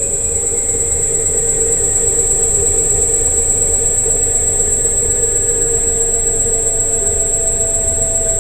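Electric scooter riding at steady speed: a constant high-pitched motor whine over a low rolling rumble, with lower hums that drift slightly in pitch.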